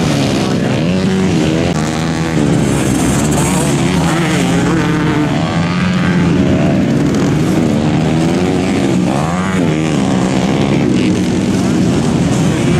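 Several dirt bike engines running and revving on the track, their pitch repeatedly rising and falling as the riders accelerate and shift.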